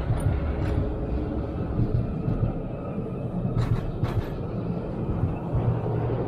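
Articulated electric tram passing close by on street track: a steady low rumble of motors and wheels on the rails. A couple of sharp clacks come about three and a half and four seconds in.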